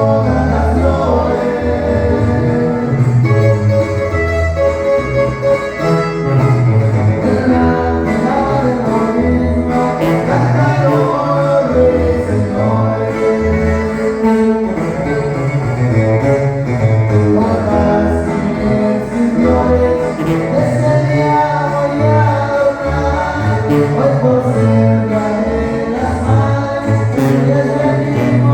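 Live band music led by a tuba, which plays a bass line stepping from note to note under the melody instruments.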